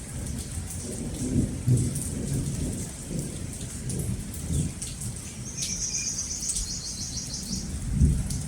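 Steady rain with thunder rumbling underneath, swelling about a second and a half in and again near the end. About five and a half seconds in, a bird gives a quick pulsed trill that falls slightly in pitch and lasts about two seconds.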